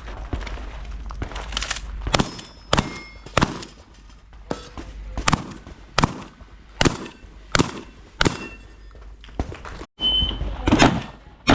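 Shotgun fired in a rapid string, a dozen or so shots about two-thirds of a second apart. Near the end the sound cuts out briefly and a short high beep sounds, like a shot timer's start signal, before the shots resume.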